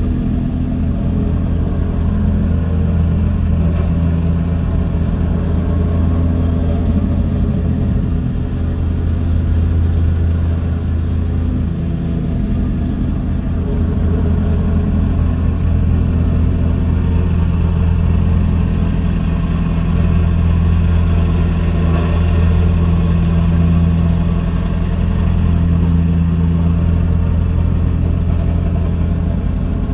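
Mini excavator engine running steadily, its pitch and load shifting a little now and then.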